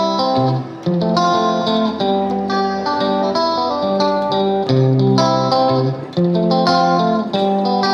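Background music led by a plucked guitar, with notes and chords changing in a steady rhythm.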